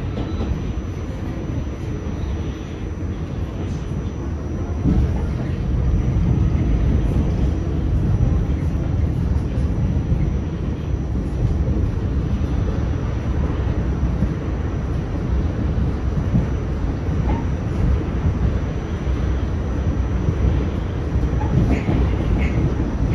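R46 subway car running along the track, heard from on board: a continuous low rumble of wheels and running gear, which grows louder about five seconds in and then holds steady.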